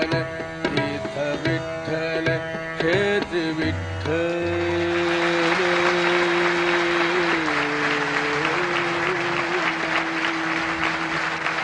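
Closing phrases of a Hindustani devotional song (abhang) with tabla strokes. About four seconds in, the music settles on one long held final note, and audience applause rises and carries on over it.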